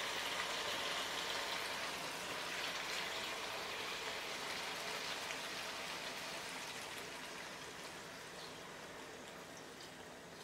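Water poured in a steady stream into a kadai of hot, oil-separated chicken curry, splashing and hissing into the gravy; the sound slowly grows quieter.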